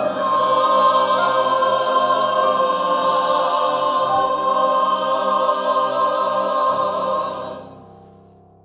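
Mixed choir of men's and women's voices singing, holding a long final chord that fades away near the end.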